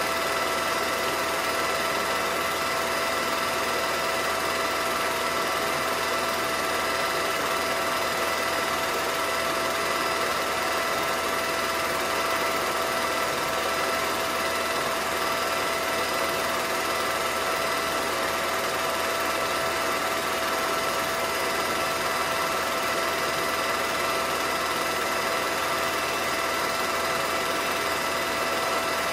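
Film projector running steadily with a constant mechanical whir and hum.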